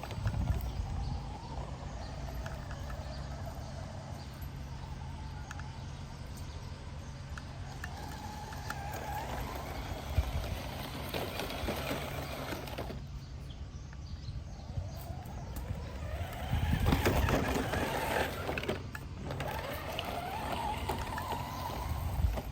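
Motor of a ZP1005 remote-control off-road car whining as it is driven, the pitch rising and falling several times as it speeds up and slows. There are louder, rougher bursts of noise about halfway through and again a few seconds later.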